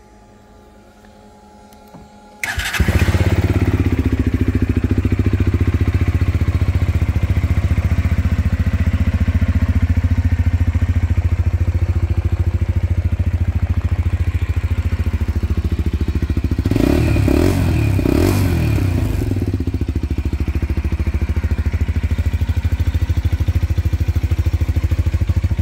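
A Lexmoto LXR 125's 125cc single-cylinder four-stroke engine is started with the electric starter about two seconds in. It catches at once and idles steadily. About seventeen seconds in it is revved a few times, rising and falling, then settles back to idle.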